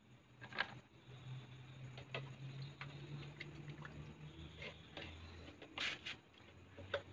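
Faint scattered taps and clicks as a paint can and brush are handled, a few slightly louder near the end, over a low steady hum.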